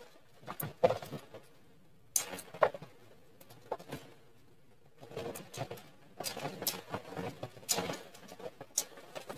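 Eating sounds from spicy octopus: chewing and chopsticks clicking against the metal tray, in scattered, irregular clicks and short noises, with puffs of breath blown out against the chili heat.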